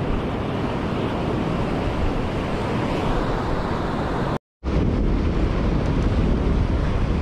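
Surf washing up the beach with wind buffeting the microphone, a steady rushing noise. The sound cuts out for a moment a little past halfway, then comes back with heavier wind rumble on the microphone.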